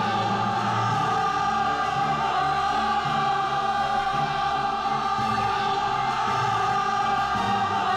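Dramatic score sung by a choir without words, holding long sustained notes over a shifting lower accompaniment.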